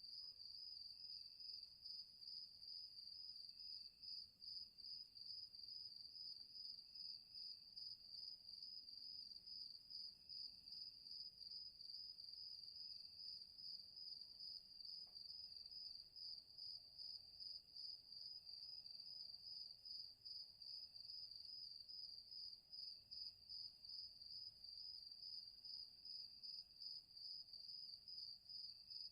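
Crickets chirping in a steady, fast-pulsing high trill, with a fainter, lower chirp recurring every couple of seconds.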